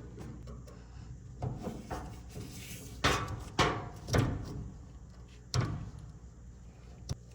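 Parts of a GE dryer being handled during disassembly: several separate knocks and clunks at irregular spacing, the loudest a little after three seconds in.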